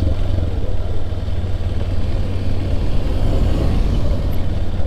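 Intercity bus's diesel engine running as the bus pulls away, a steady low rumble.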